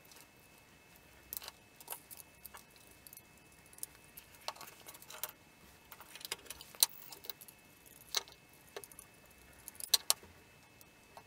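Plastic relay socket, timer relay module and wires handled by hand on a wooden bench: scattered light clicks and taps at an irregular pace.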